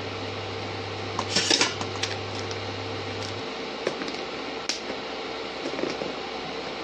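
Plastic bottle handled while its cap is picked at by hand: scattered small plastic clicks, with a louder crinkly rustle about one and a half seconds in. A steady low hum underneath stops about halfway through.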